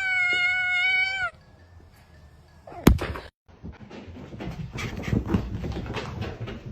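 A domestic cat's long, drawn-out meow, held nearly level in pitch and ending just over a second in. About three seconds in there is a single sharp knock, followed by a stretch of scattered clattering and rustling.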